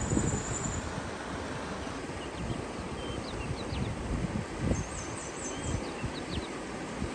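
Small birds chirping, with short high calls and a brief trill, over a steady rushing background with low gusty rumbles.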